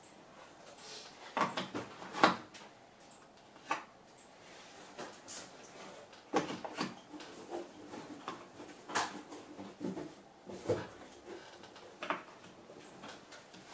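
Steel screw extractor bits clicking and knocking against a plastic storage case as they are handled and pushed into their slots. The clicks are irregular, with the sharpest knock about two seconds in.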